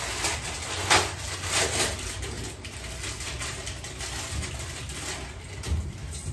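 Crinkling and tearing of small plastic instant-noodle seasoning sachets being opened and squeezed out, with sharp crackles, the loudest about a second in.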